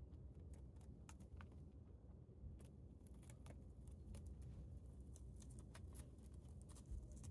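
A rabbit chewing leaves of Chinese cabbage: faint, quick, crisp crunching clicks, several a second and irregular.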